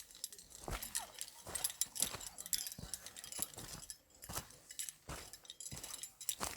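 Footsteps walking on a hard surface, irregular sharp steps with light jingling and clinking between them.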